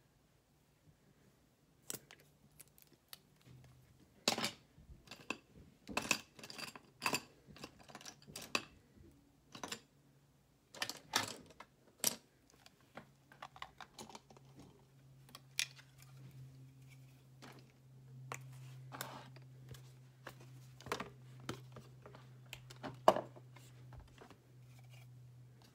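Irregular small clicks and taps of makeup tools and containers being handled, such as compact lids and a brush against a palette, over a faint steady low hum that grows a little stronger in the second half.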